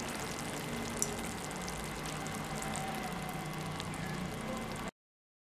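Pumpkin and cowpea curry simmering in the pan with the flame just turned off: a steady hiss with faint crackles and a single click about a second in, cutting off suddenly near the end.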